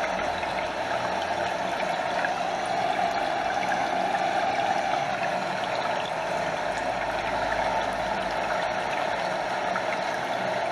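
Stream water flowing steadily, a continuous even rush with small splashes and water lapping close by.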